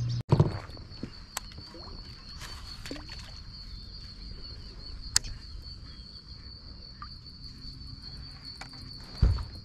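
Steady high-pitched chorus of insects, crickets by their sound, on a reedy waterside at dusk. A low thump comes just after the start and another near the end, with a few sharp clicks between.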